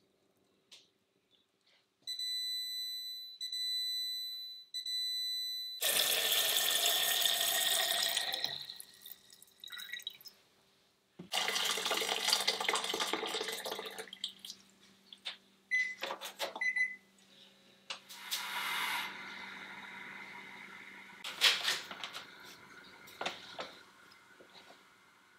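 Kitchen sounds: an electric rice cooker's panel beeps in a steady run of tones, then water runs and is poured into a stainless steel saucepan on the stove. Two more short beeps, a steady low hum and a few clicks and knocks follow as the rice cooker is opened.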